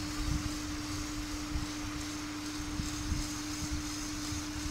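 Lego model's small electric motor running its gear train, a steady hum on one constant tone.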